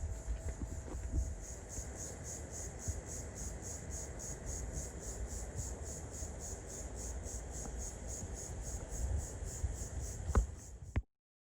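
Insects chirping in a steady high-pitched pulse, about four chirps a second, over a low rumble. The sound cuts off abruptly near the end.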